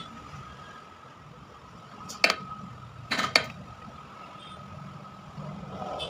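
Sharp clicks and knocks of small tools and a phone circuit board in its holder being handled on a workbench: one about two seconds in, then a quick cluster about a second later. Underneath runs a steady faint high tone and a low background rumble.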